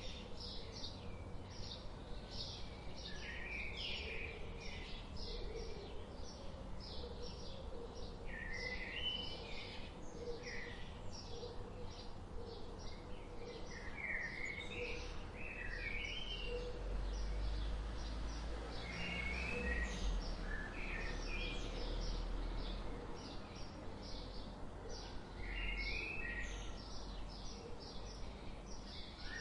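Songbirds chirping and twittering: a dense run of quick high chirps, several a second, mixed with short warbled phrases that recur every few seconds. A low rumble rises under them in the middle and again near the end.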